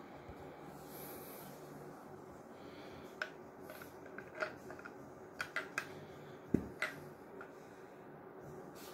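Scattered clicks and knocks of hard plastic as a small red spout cap is fitted into the lid of a plastic candy jar. There are about half a dozen sharp clicks in the middle of the clip, and the loudest is a knock with a dull thud about six and a half seconds in.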